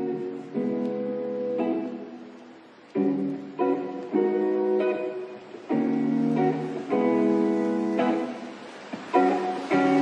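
Background music: acoustic guitar strumming chords, each new chord struck sharply about every second or so.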